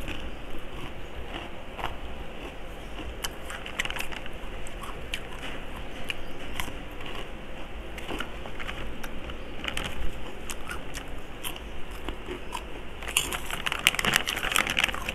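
Crunching and chewing of crispy chicharon pork-rind snacks, with scattered crackles. Near the end comes a denser burst of crinkling from the plastic snack bag as a hand digs into it.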